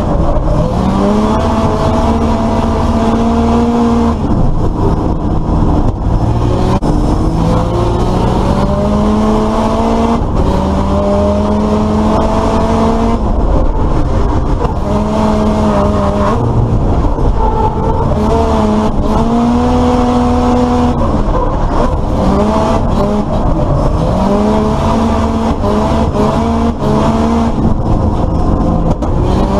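Drift cars' engines revving hard, the pitch climbing, holding and dropping again and again as they are driven through the corners, over a steady hiss that fits tyre noise.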